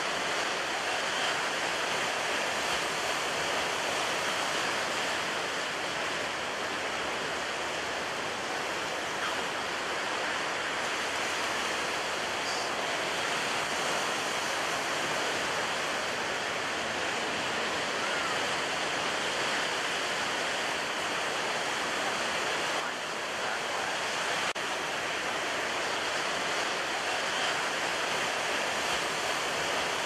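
Ocean waves blended with brown noise: a steady, even wash of rushing noise with hardly any swell, dipping briefly about three-quarters of the way through.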